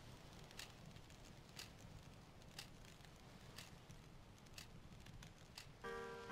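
Faint, even ticking about once a second over a low hiss. Near the end, a music intro of sustained chords begins.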